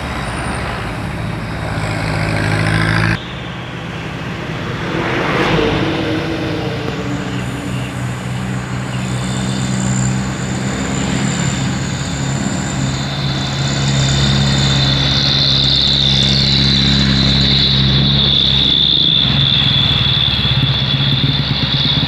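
Heavy truck engines running on the road as trucks drive past, with a steady high whine joining in the second half. The sound changes abruptly about three seconds in.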